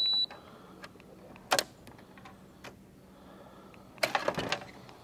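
A short, loud electronic beep, then a sharp click about a second and a half later and a brief clatter of knocks around four seconds in, over a faint steady hum.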